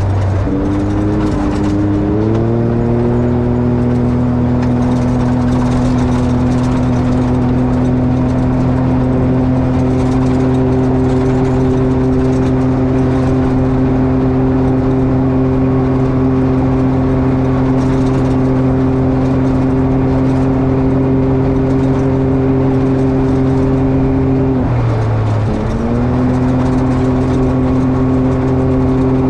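Can-Am XRC side-by-side's engine running at a steady held speed. Its pitch drops briefly just after the start and again about 25 seconds in, then climbs back up to the same steady note each time.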